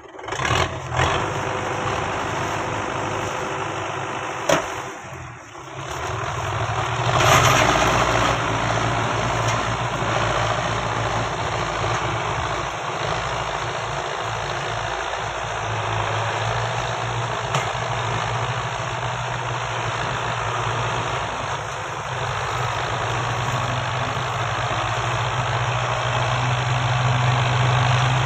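Four-cylinder diesel engines of Belarus 510 tractors running steadily as they pull a heavily loaded sugarcane trolley, with a short louder surge about seven seconds in.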